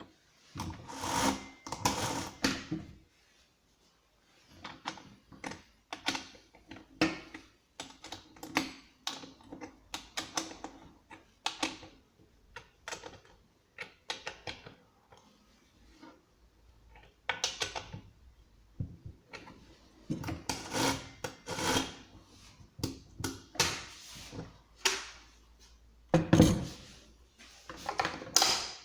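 Hard parts of a Husqvarna 555 chainsaw being handled during unboxing: a run of irregular clicks, knocks and light rattles, with a few louder scraping bursts near the start and toward the end.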